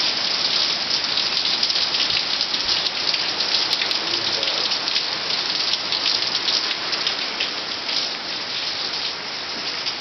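Heavy rain falling on a concrete driveway and parked cars: a steady hiss of drops and splashes.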